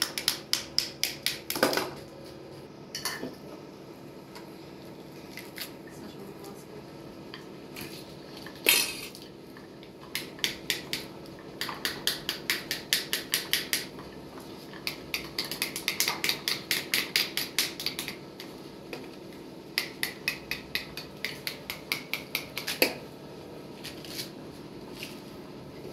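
Pomegranate halves being tapped with a utensil to knock the seeds out, in quick runs of about four to five taps a second, with a few single louder knocks between runs.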